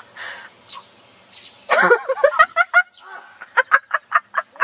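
A bird calling loudly: one harsh, sweeping outburst about halfway through, then a rapid series of short, clipped notes near the end.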